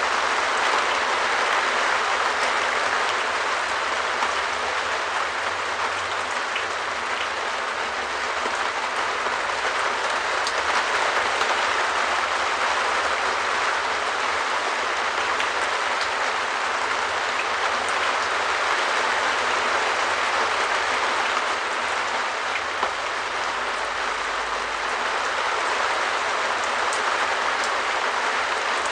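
Rain falling steadily on a shed roof: an even hiss of drops with scattered sharper ticks.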